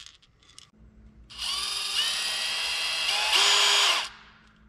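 DeWalt cordless drill boring a small pilot hole into a 3D-printed plastic jerkbait body. The motor whines for nearly three seconds, rising in pitch twice as the trigger is squeezed harder, then stops suddenly.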